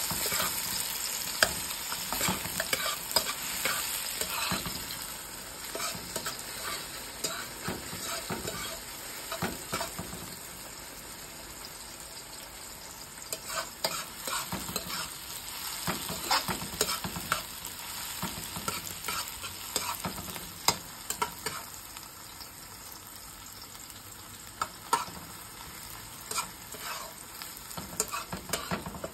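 Sliced onion sizzling as it fries in oil in a metal pot, with a metal spoon stirring and clicking against the pot now and then.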